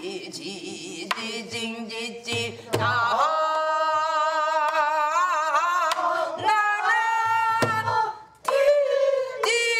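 Korean folk singing in pansori style: one voice holding long notes with a wide, wavering vibrato, accompanied by low drum strokes and occasional sharp stick clicks. There is a brief dip between phrases a little past the middle, and then a higher held note.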